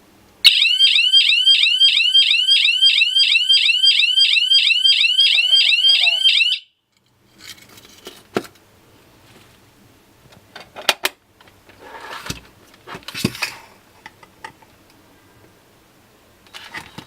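Alarm system siren going off: a loud electronic warble, its pitch sweeping about five times a second, which cuts off suddenly after about six seconds. Scattered sharp clicks and handling noises follow.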